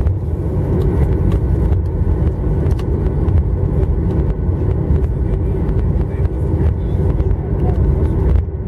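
Cabin noise of a Boeing 737-900ER taxiing, heard from a window seat over the wing: a steady low rumble with its CFM56 engines at idle thrust.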